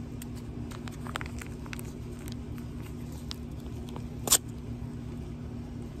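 A steady low mechanical hum, with light scattered taps in the first couple of seconds and one sharp click about four seconds in.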